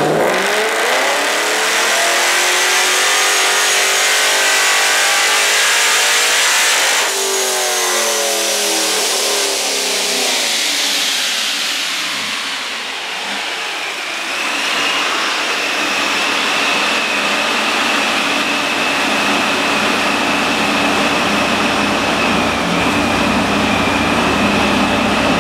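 Procharger D1-SC supercharged LS V8 (LSX 376-B15) in a C6 Corvette making a full-throttle pull on a chassis dyno. The engine note climbs with a high supercharger whine rising above it, breaks off sharply about seven seconds in, climbs again briefly, then winds down. It settles into a steady hum with a thin high whistle.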